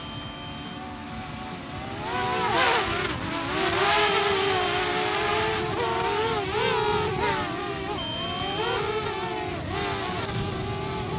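Quadcopter drone's propellers whining close overhead, the pitch sliding up and down as it manoeuvres. It gets louder about two seconds in as it comes near.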